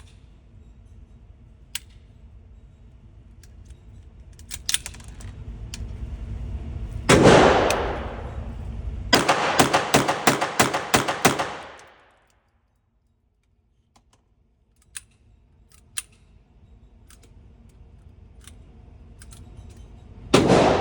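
Gunshots from a small-calibre pistol: a single shot about seven seconds in, then a rapid string of about ten shots, roughly four a second, and another single shot near the end, with scattered sharp clicks in between.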